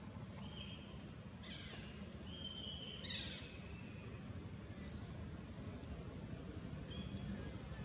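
Baby long-tailed macaque squealing: a string of high, thin cries, some held briefly and some falling in pitch, crowded into the first few seconds, with a fainter cry about four seconds in and a short one near the end.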